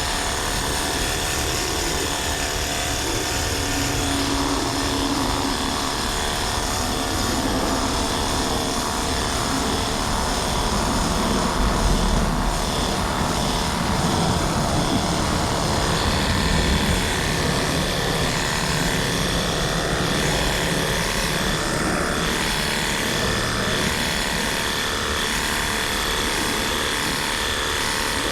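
A steady mechanical drone, engine-like, with several steady tones over a wash of noise, swelling slightly about halfway through.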